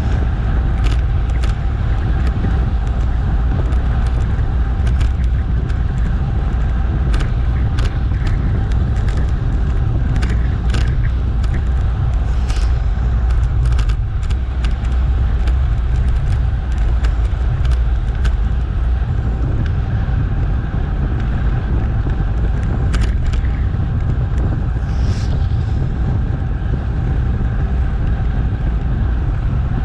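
Steady wind and road rumble from a bicycle being ridden, picked up by a camera carried on the bike or rider, with scattered short clicks and rattles.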